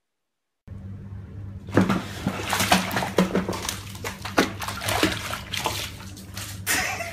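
Cat splashing and thrashing in a bathtub full of water, with the water sloshing against the tub, over a steady low hum. The splashing starts after a second or so of silence and goes on in irregular bursts until the cat scrambles out over the rim near the end.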